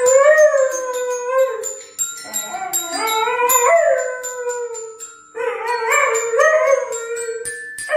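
Small dog howling along to a toy xylophone being tapped with wooden mallets: three long, wavering howls over a stream of quick, bright, ringing metal-bar notes.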